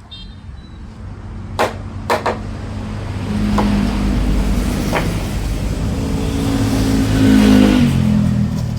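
An engine running, its pitch shifting up and down as it grows louder over several seconds, with three sharp knocks shortly before it swells.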